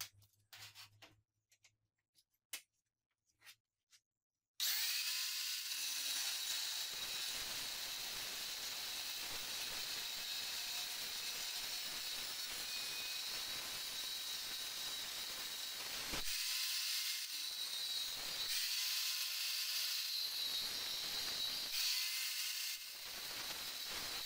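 A few light metal clicks and knocks, then an angle grinder with a cut-off disc starts abruptly about four and a half seconds in and cuts into a steel bicycle sprocket with a steady high whine, easing off briefly a few times near the end.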